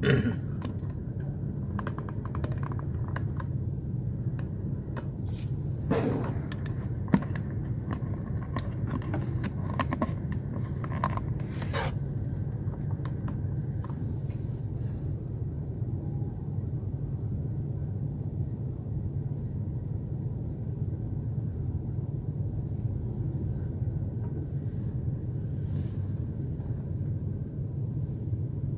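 Steady low rumble inside a car cabin while the car idles at a red light, with a few scattered clicks and rustles, mostly in the first twelve seconds.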